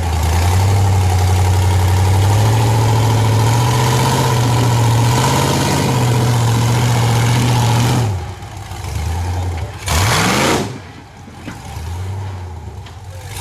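Off-road rock-bouncer buggy engine held under heavy throttle for about eight seconds, then dropping off; a short sharp rev about ten seconds in, a quieter stretch, and the throttle coming back on near the end.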